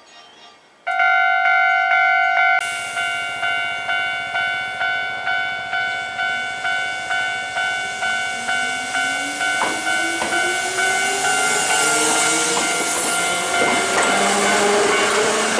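A Japanese level-crossing alarm starts suddenly about a second in, its electronic bell ringing about twice a second. From about eight seconds a Hankyu Senri Line electric train's motor whine rises in pitch, and wheel and rail noise grows loud near the end as the train passes the crossing.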